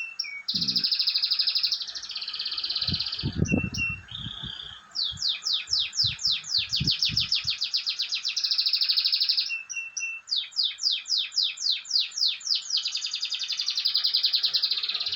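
Domestic canary singing long phrases of fast trills and runs of repeated sweeping notes, with brief pauses between phrases. A few dull low thumps sound a few seconds in.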